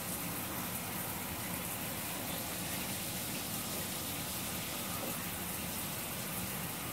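Shower running: a steady hiss of spraying water.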